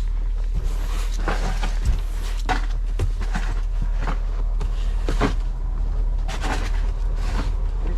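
Steady low rumble of a car driving slowly on a snowy road, heard from inside the cabin, with short clicks and knocks every second or so.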